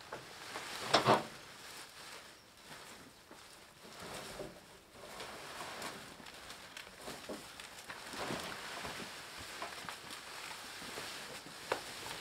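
Freshly cut green corn stalks rustling as armfuls are pulled off a small trailer and carried away, with a sharp knock about a second in and another near the end.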